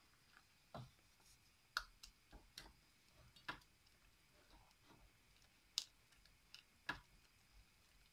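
Wooden spoon stirring thick choux pastry dough in a stainless steel saucepan: faint, irregular clicks and knocks as the spoon strikes the pan. The dough is being worked over low heat to dry it out without catching on the bottom.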